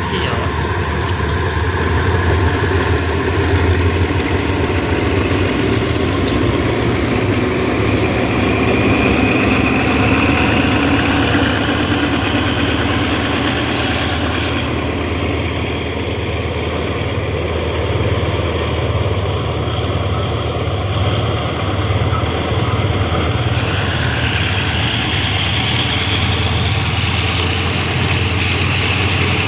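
Two diesel locomotives hauling a passenger train away from a station, their engines running under load as they pass close by, with the coaches then rolling past behind them.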